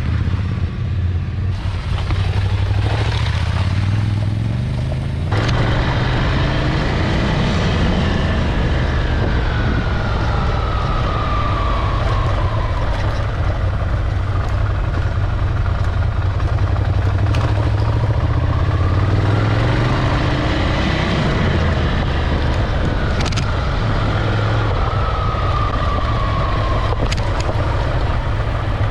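Ducati Scrambler Desert Sled's air-cooled L-twin engine running with a steady low rumble while being ridden. Its pitch falls off twice as the throttle is eased.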